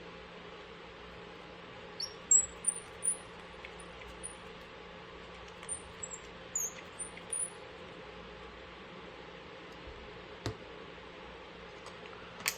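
A small bird chirping: a run of short, very high chirps, some sliding up or down in pitch, from about two seconds in until about halfway, over a steady low hum. A couple of light clicks near the end.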